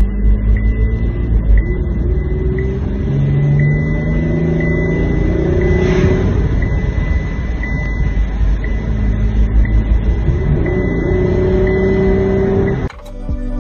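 Holden Commodore 3.0-litre V6 engine heard from inside the cabin, running under load with its pitch rising several times as it accelerates. It is working against a badly restricted exhaust, with backpressure off the charts. Music cuts in near the end.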